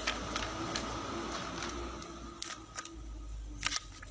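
Paper rustling with several light clicks and snaps as a handheld paper dragon puppet is waved and worked, over a steady faint hiss.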